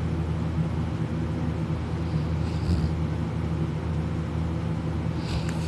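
A person snoring in deep sleep, lying on their back with the mouth open: a steady low rumble, with short breathy hisses about every three seconds.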